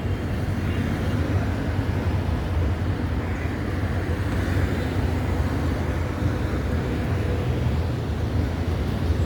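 Steady street traffic noise with a continuous low rumble.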